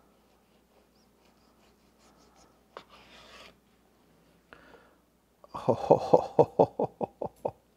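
Kitchen knife cutting through a smoked sausage-wrapped stuffed jalapeño on a bamboo cutting board, with faint scrapes and a short scraping rasp about three seconds in. About five and a half seconds in, a loud rapid creaking rattle follows, about seven strokes a second for two seconds, while the gloved hand pulls the cut halves apart.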